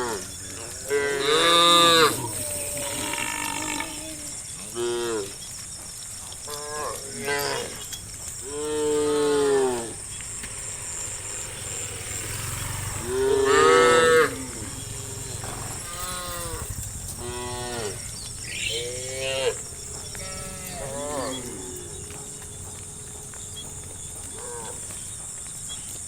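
Cattle mooing again and again, several cows calling one after another and sometimes over each other, with the loudest long moos about two, nine and fourteen seconds in.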